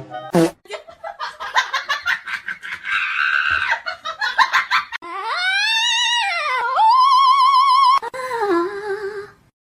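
Laughter in quick repeated bursts, then a long high wavering cry that rises and falls, warbles, and drops lower near the end.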